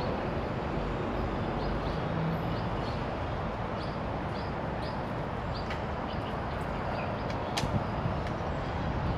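Steady outdoor background noise, a low rumble with hiss, with faint short high chirps scattered through it and a single sharp click near the end.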